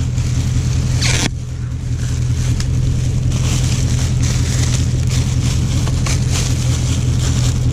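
A vehicle engine idling steadily under rustling and scraping of trash being handled, with a short sharp rustle about a second in.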